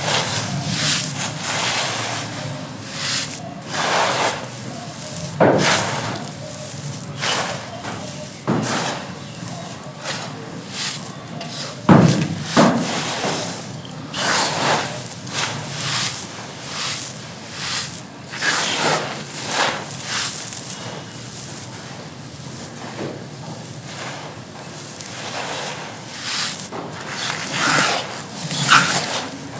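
Soft, dry, gritty clay being crumbled: irregular crunches and crumbly rustling, with one louder crunch about twelve seconds in.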